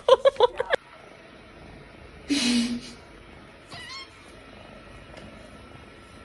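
A domestic cat vocalising: a short, loud, noisy cry about two seconds in, then a brief high wavering meow about a second later.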